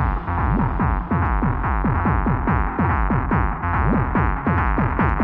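Electronic dance track at 143 BPM, a trance/techno instrumental. A driving pattern of short synth notes that swoop in pitch, about five a second, runs over a steady low bass, with the top end filtered down.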